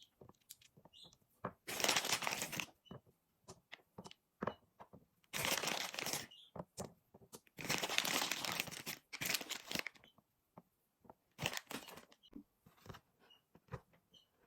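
Mentos candy packaging crinkling and tearing in four bursts of about a second each, with light clicks and taps of candies being handled between them.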